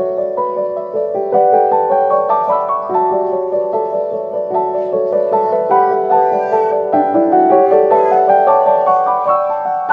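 Background piano music: a slow melody of held notes over soft chords.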